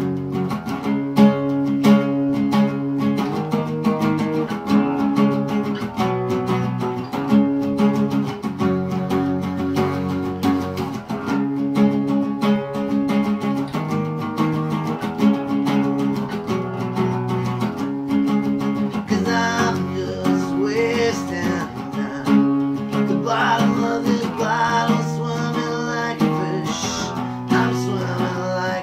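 Epiphone acoustic guitar strummed in a steady chord progression, the chords changing about every second. About two-thirds of the way through, a man's singing voice comes in over the strumming.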